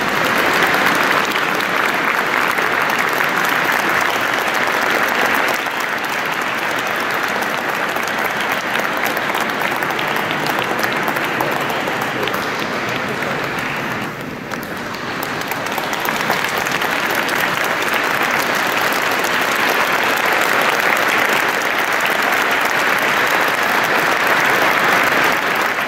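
Audience applauding at length in a cathedral. The applause dips briefly about halfway through, then swells again.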